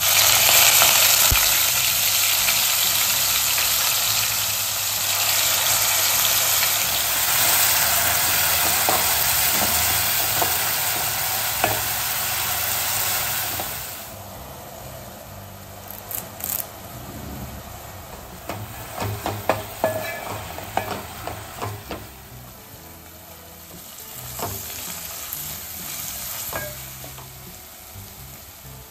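Chopped onions hit hot oil in a metal pot and sizzle loudly at once, and the sizzle cuts off abruptly about halfway through. Quieter frying follows, with a metal spoon clicking and scraping against the pot as the onions are stirred.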